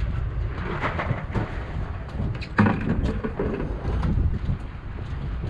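Wind buffeting the microphone on an open boat deck, a rough, unsteady low rumble, with a single sharp knock about two and a half seconds in.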